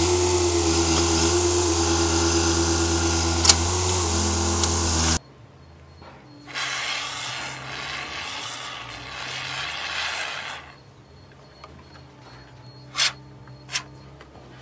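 Hitachi EX30 mini excavator's engine running loud and steady, with a low hum and a steady tone above it. It cuts off suddenly about five seconds in, followed by a steady hiss of spraying from a tube pushed into a hole in a dented car door, lasting about four seconds, then two sharp clicks under a second apart near the end.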